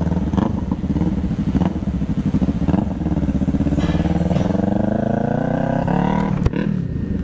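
Motorcycle engine running under way, its pitch climbing steadily for a couple of seconds as it accelerates. Near the end there is a sharp click and the pitch drops.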